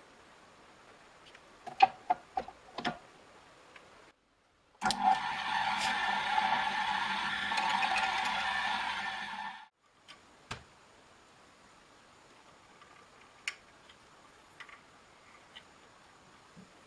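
Bench drill press running for about five seconds as its bit drills into a wooden lamp body, a steady motor hum that starts and stops abruptly. Before it come a few sharp knocks as the wooden piece is handled at the drill, and afterwards a few light clicks.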